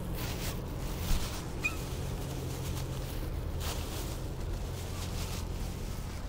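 Outdoor ambience: a steady low rumble with faint rustling, a soft knock about a second in, and one brief high chirp.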